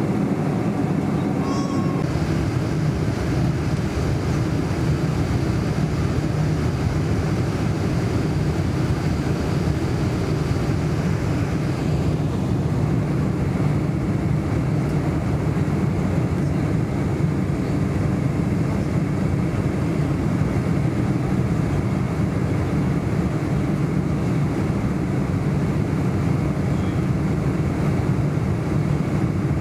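Steady, even rumble of a Boeing 747 heard from inside the cabin in flight: the jet engines and the rush of air around the fuselage.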